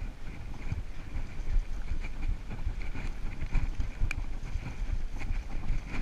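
Mountain bike riding fast down a dirt trail: wind buffeting the camera microphone over the rumble and rattle of the bike, with a few short clicks and one sharp click about four seconds in.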